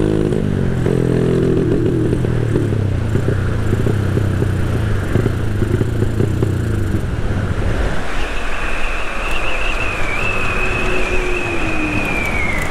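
Yamaha Crypton 135 motorcycle engine running on the move, with wind and road noise. Its engine note is clear for the first several seconds, then fades. From about eight seconds a steady high whine joins in.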